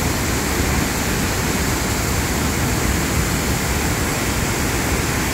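Steady rushing of turbulent water churning through a concrete stilling basin.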